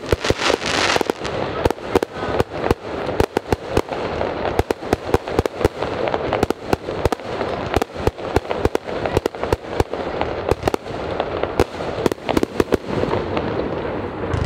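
Aerial fireworks shells bursting in a dense, irregular string of sharp bangs and cracks, several a second, over a continuous hiss.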